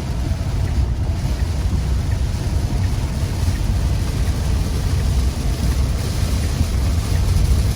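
Heavy rain pouring down on a moving car, a steady hiss over a constant low rumble of the road and engine.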